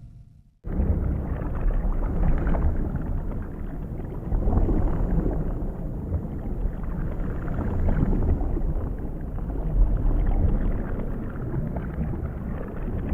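Underwater sound-effect ambience: a continuous low, churning rumble of moving water. It starts abruptly just under a second in, after a moment of silence.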